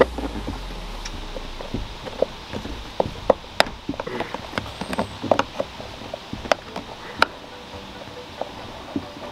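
Irregular light clicks and taps of a small metal tool working a fastener in the plastic mounting foot of a roof crossbar, metal knocking against the rail and housing.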